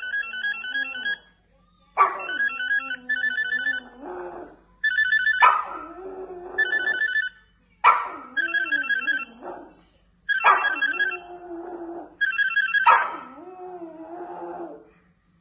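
A landline phone's electronic ringtone plays in short repeated bursts, and a dog howls and whines along with it, one long wavering cry after each burst, about six times.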